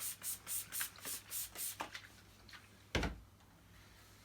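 Trigger spray bottle spritzing a shine spray onto a vacuum cleaner's plastic body: about seven quick hissing squirts, about four a second, followed by a single knock.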